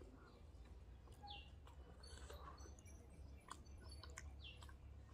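Faint chewing with small mouth clicks and fingers working food on a steel plate, over a low steady hum. A bird gives two short high chirps.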